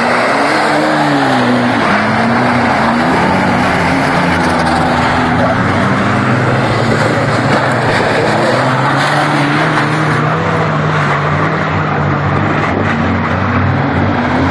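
Banger racing cars' engines running and revving, their pitch rising and falling, over a steady loud noise of several cars on the track.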